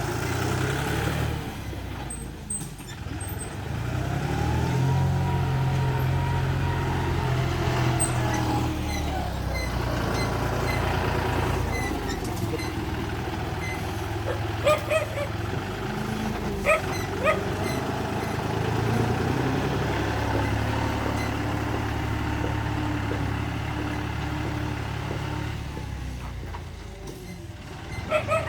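Bulldozer engine running steadily, its pitch rising and falling as it works, with a few short high-pitched squeaks about halfway through and again near the end.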